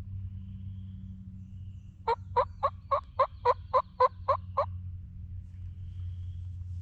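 A series of about ten loud, evenly spaced wild turkey yelps, about four a second, lasting some two and a half seconds, over a steady low hum.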